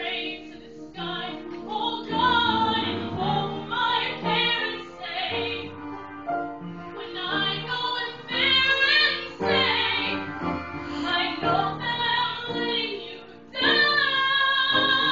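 A woman singing a musical-theatre song with live piano accompaniment, her voice rising to a loud held note near the end.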